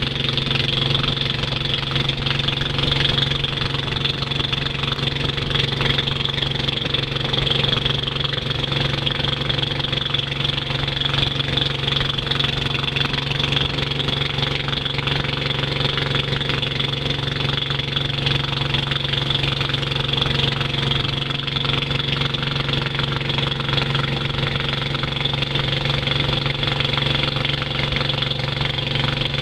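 Long-tail boat's engine running at a steady speed while the boat is under way, an even drone that does not change.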